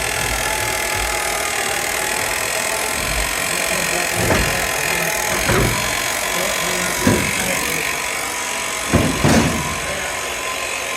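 Steady machine drone throughout, with five sharp, ringing knocks, the last two close together: tool blows on steel during work on the feed wagon's sprocket and shaft.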